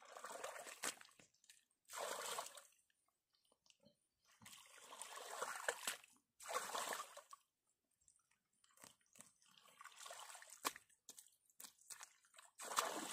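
Wet mud being scooped and pressed by hand onto a low mud wall in shallow pond water. It squelches and splashes in a string of short bursts with quiet gaps between them.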